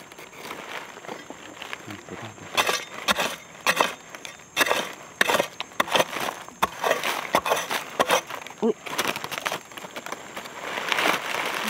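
Irregular crunching, scraping and knocking of dry, crumbly soil and leaf litter as a hole is dug out with a small spade and by hand.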